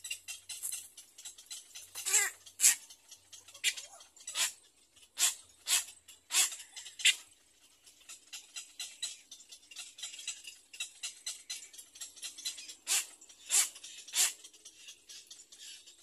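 Little egret chicks begging in the nest: rapid, high-pitched chittering calls, with a run of sharper, louder calls in the first half and another cluster near the end.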